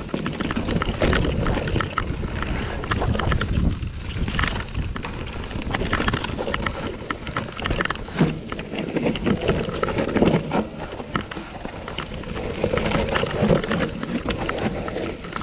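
Mountain bike running down a rough dirt trail: wind buffeting the microphone, with the bike's chain and frame rattling and knocking over bumps.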